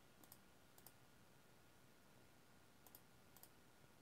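A few faint computer mouse clicks, some in quick pairs, over near silence.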